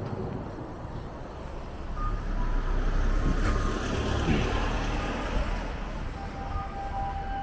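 A heavy road vehicle passing close by. A low rumble swells about two seconds in, a whine falls in pitch around the middle, and the rumble fades toward the end.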